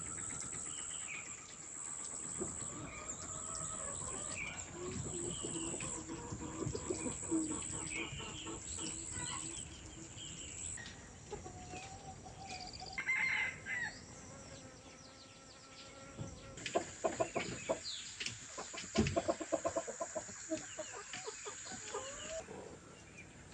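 Farmyard chickens, a rooster crowing and hens clucking, with small birds chirping over a steady high-pitched drone. Quick runs of clucking come in the last few seconds.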